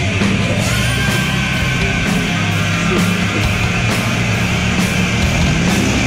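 Loud rock music with a steady drum beat, about two beats a second.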